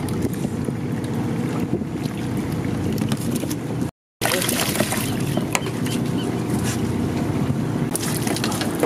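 Boat machinery running with a steady low rumble, while a dip net splashes live bait fish into the water of a bait tank. The sound cuts out briefly about four seconds in, and the splashing is busier after that.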